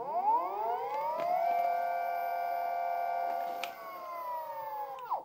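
Basecamp F11's single hub-drive motor spinning the rear wheel freely under remote throttle. It makes a whine that rises smoothly in pitch for about a second and a half, holds steady, eases off a little, then drops away sharply near the end. The gradual spin-up shows the board's light acceleration curve.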